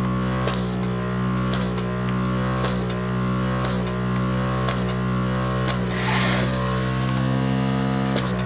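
Vacuum pump of a desoldering station running with a steady hum and faint clicks about once a second. About six seconds in there is a short hiss as the desoldering tip sucks molten solder off a keyboard switch pin.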